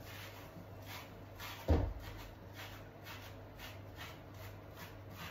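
Hands rubbing and squeezing through a wet Jackapoo puppy's knotted coat, working product into the tangles to loosen them: soft swishing strokes about twice a second. One dull thump comes a little under two seconds in, with a low steady hum underneath.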